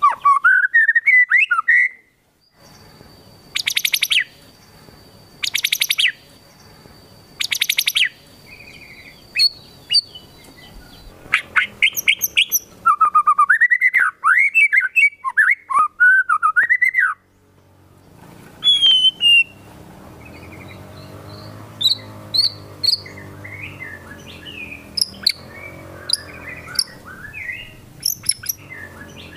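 White-rumped shama (murai batu) singing a loud, varied song. First comes a rising whistled phrase, then three harsh rattling bursts about two seconds apart, then a run of rapid warbling whistles. Softer chips and short notes follow in the last third.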